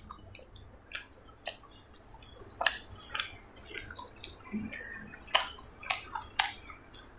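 Close chewing of crisp parotta: irregular crunches and wet mouth clicks.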